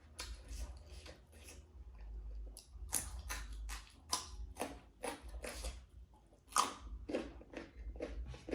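A person chewing food with the mouth close to the microphone: an irregular run of short wet smacks and mouth clicks, a few a second, over a steady low hum.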